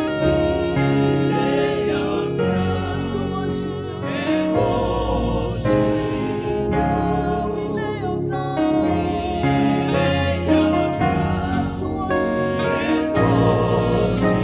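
Gospel worship music with singing, the voices holding long wavering notes over sustained accompaniment.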